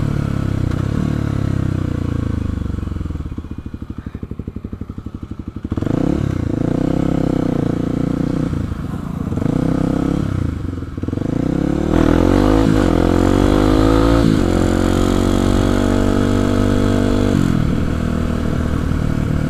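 Kawasaki KLX 250's single-cylinder four-stroke engine on the move. It drops to a low, slow pulsing chug for a couple of seconds, then picks up again, its pitch rising and falling through gear changes, with a clear rising climb as it accelerates about twelve seconds in.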